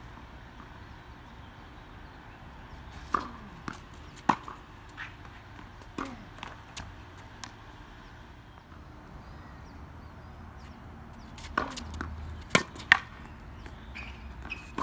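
Tennis balls struck by rackets and bouncing on a hard court during a rally: a run of sharp pocks starting about three seconds in, a pause, then a louder cluster about twelve seconds in, with two loud pocks close together as the ball comes to the near player.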